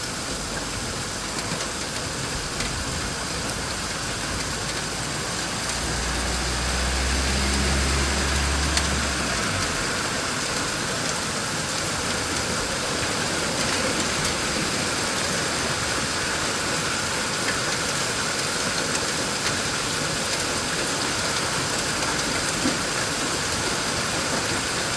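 Heavy storm rain mixed with sleet and small hail falling steadily, with scattered faint clicks of pellets striking. About six seconds in, a vehicle engine's low hum rises under it for a few seconds, then fades.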